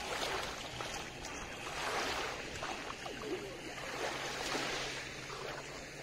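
Small Dead Sea waves lapping and washing up on a pebble shore, swelling about every two seconds.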